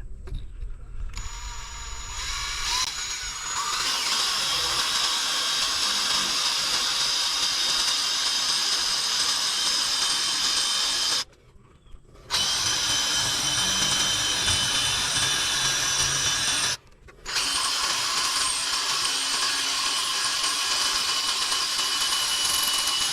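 A cordless drill, not a hammer drill, with a masonry bit drilling into chimney brick. It spins up with a rising whine about a second in, then runs steadily under load, stopping briefly twice.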